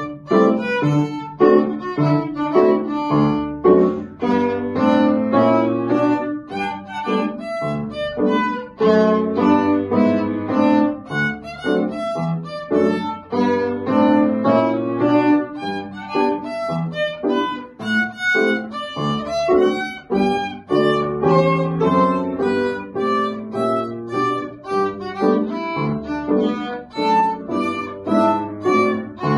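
Violin played with upright piano accompaniment: a continuous tune of quick bowed notes over piano chords.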